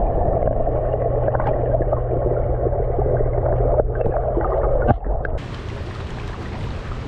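Swimming pool water heard from underwater: a muffled, steady rumble and hiss with faint bubbly clicks. About five seconds in the microphone comes above the surface, and the sound turns suddenly brighter and quieter as open-air water lapping.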